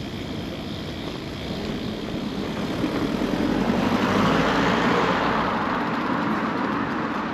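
Road traffic noise: a vehicle going by swells about three seconds in and fades toward the end, over a steady low rumble.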